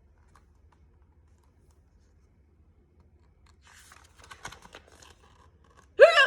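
Soft scratching and clicking handling noise for about a second and a half past the middle, then near the end a short, loud voiced 'hic!' that sweeps up in pitch: a person acting out a little penguin's hiccup.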